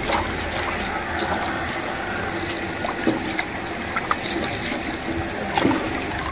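Tap water running in a steady stream into a stainless-steel basin, splashing over blanched banana leaves as they are cooled and rinsed by hand, with a few small splashes along the way.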